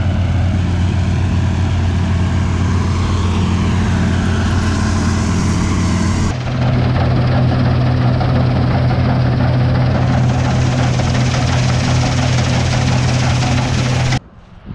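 New Holland TX62 combine harvester running steadily while harvesting, a loud, even machine drone. About six seconds in the sound changes abruptly to a different steady drone, which cuts off just before the end.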